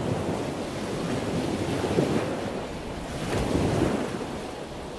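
An ocean wave breaking, then the steady rushing wash of surf and churning foam, easing off slightly near the end.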